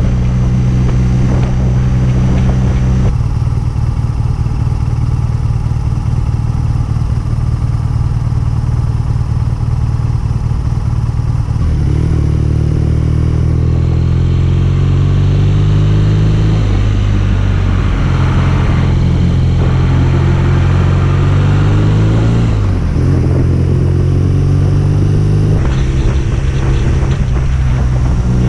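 BMW R nineT's boxer-twin engine and exhaust while riding. The note climbs as it pulls and drops back in steps several times.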